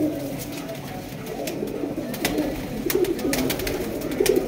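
Many domestic pigeons cooing together in overlapping low, wavering coos, with scattered sharp clicks.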